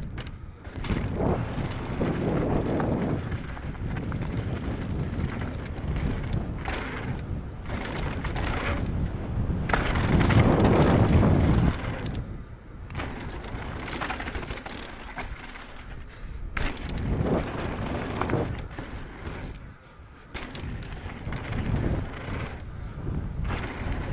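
Mountain bike descending a dirt and gravel trail at speed: tyres rumbling over loose stones, knocks from the bike over bumps, and wind rushing over the handlebar camera's microphone. It surges loudest about ten seconds in.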